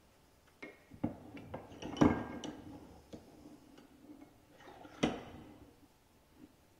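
Metal parts of an electric pruning shear's cutting head clicking and clinking as the blade is handled and set onto the head in a bench vise. There are scattered light clicks, with the loudest knocks about two seconds in and again about five seconds in.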